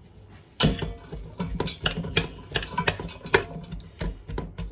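A spoon stirring sliced peppers, onions and green chillies in a frying pan, with quick irregular scraping and knocking against the pan starting about half a second in.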